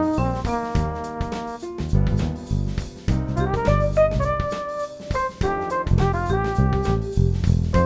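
Instrumental jazz-style music with piano, horns and a drum kit keeping a steady beat.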